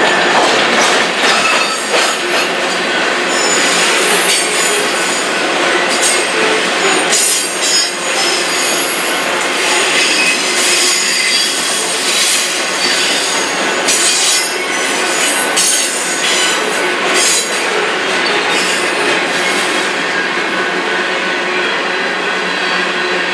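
Freight cars of a mixed manifest train (coil cars, boxcars and tank cars) rolling past: loud, steady clatter of steel wheels on the rail with knocks at the joints and high-pitched wheel squeal.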